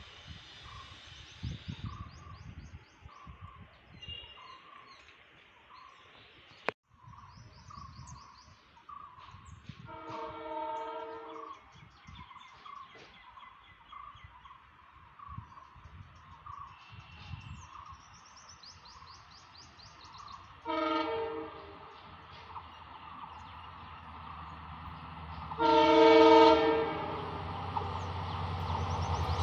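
An approaching Indian Railways locomotive sounds its horn three times, each a short blast of several stacked tones: about 10 s in, about 21 s in, and loudest about 26 s in. Over the last few seconds the engine's low rumble builds as the train accelerates toward the platform.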